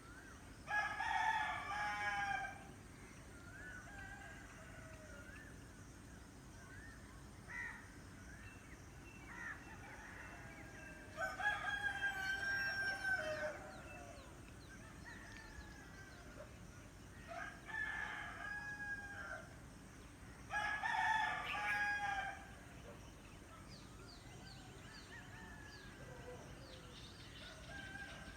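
Rooster crowing four times, each crow about two seconds long, with other birds calling faintly between the crows.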